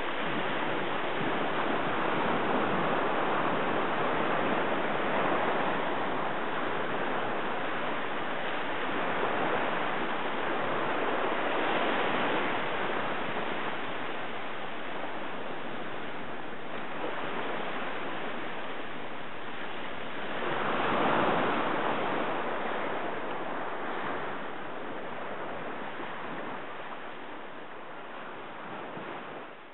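Small waves breaking and washing up a sandy beach: a continuous rush of surf that swells and eases with each wave, with a louder wash about two thirds of the way through.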